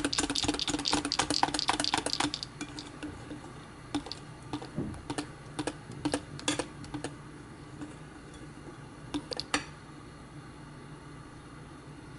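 Wire whisk beating thick cake batter in a glass bowl: a rapid run of clicks as the wires strike the glass for the first two seconds or so, then slower, scattered taps as the whisking eases, ending before the last few seconds.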